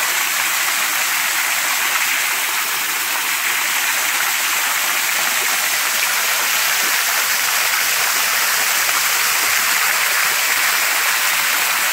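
Small waterfall pouring over a rock ledge and splashing into a shallow creek pool, heard up close: a steady, even rush of falling water.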